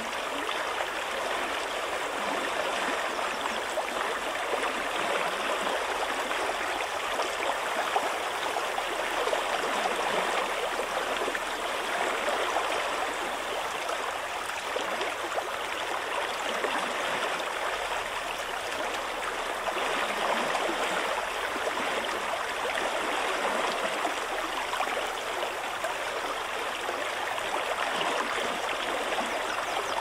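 Fast-flowing river water rushing past a small dam, a steady, unbroken noise.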